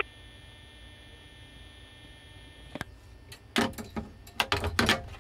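Bell payphone handset being handled and hung up: a single click about three seconds in, then a quick cluster of knocks and rattles of the handset against the cradle and housing.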